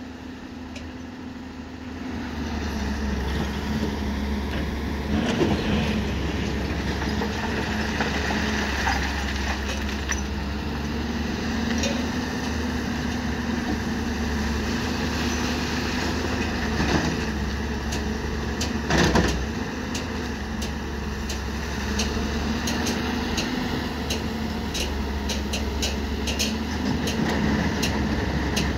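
Diesel engine of a Caterpillar tracked hydraulic excavator running steadily under working load, with scattered sharp knocks and clatter as the bucket works crushed stone; the knocks come more often near the end.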